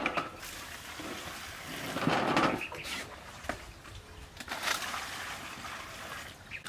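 Water splashing as it is scooped with a plastic dipper from a large concrete water jar and poured into a metal basin of vegetables. The loudest splash comes about two seconds in and another around four and a half seconds, with a few light knocks between.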